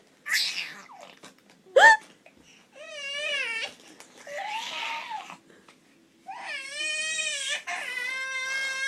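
A baby's vocal noises: a short squeal, then a sharp upward-sliding squeal about two seconds in, followed by a few wavering squeals and two long, steady, high-pitched held cries near the end.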